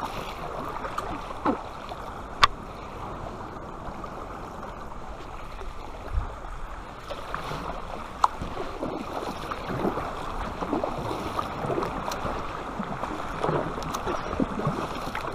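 A double-bladed paddle stroking through calm sea beside an inflatable kayak: the blades dip and pull with splashing and trickling water. A few sharp knocks cut through it, the loudest about two and a half seconds in.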